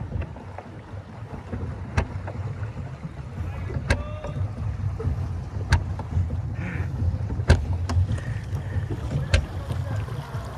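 Small fibreglass boat moving across a lake: a steady low rumble of water and wind, with sharp knocks at a fairly regular beat about every two seconds.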